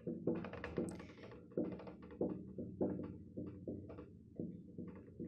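A dry-erase marker squeaking and scratching on a whiteboard as words are handwritten: a faint, quick run of short strokes, about three a second.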